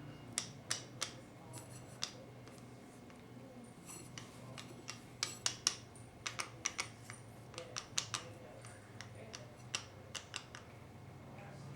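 A run of light, irregular clicks and taps of hard objects, bunched into quick clusters with short gaps between.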